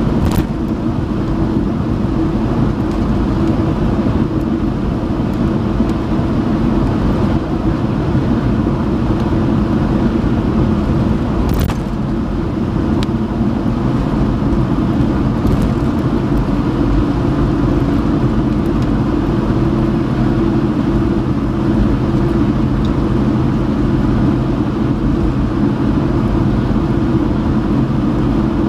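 A car driving steadily, heard from inside the cabin: an even drone of tyre, road and engine noise with a deep rumble, and a few brief ticks, the sharpest about twelve seconds in.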